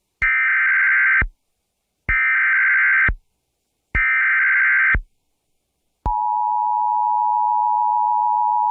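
Emergency Alert System SAME header: three identical bursts of digital data screech, each about a second long, then a steady attention tone starts about six seconds in. Together they signal the start of a new alert, here a severe thunderstorm warning.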